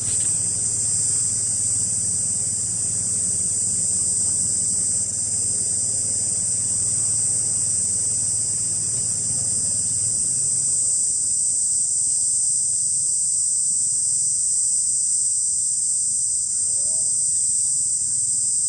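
A dense chorus of insects buzzing steadily at a high pitch. A faint low hum underneath stops about ten seconds in.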